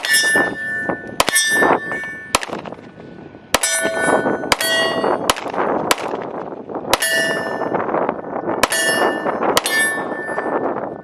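A string of about ten 9mm pistol shots from a Glock 43x, fired at an uneven pace. Most shots are followed by the clang and ring of a steel target being hit.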